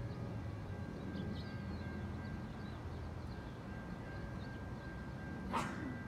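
Outdoor background of a low steady rumble with small birds chirping now and then and a faint steady high tone from about a second in; a brief whoosh near the end.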